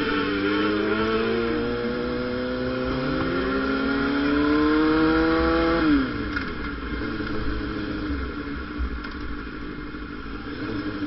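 Motorcycle engine under way, pulling with its pitch climbing steadily for about six seconds, then dropping sharply as the throttle closes and settling into a quieter, lower run, with wind rumble on the microphone.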